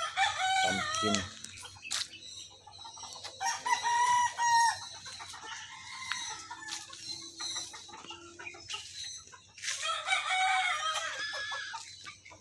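Gamecock roosters crowing: three separate crows, one right at the start, one about three and a half seconds in and one about ten seconds in, each held for a second or so.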